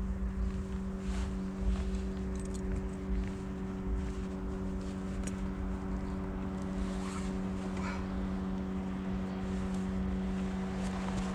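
A steady low motor hum at an even pitch, with low rumbling noise underneath and a few faint ticks.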